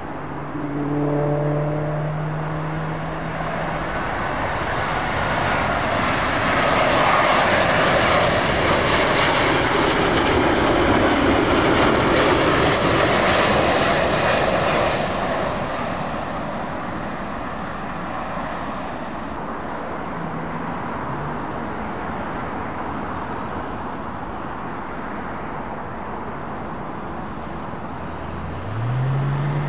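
Airbus A350-1000 with Rolls-Royce Trent XWB engines passing low overhead on final approach: the jet noise builds, stays loud for several seconds as a rushing roar with a hiss on top, then fades away.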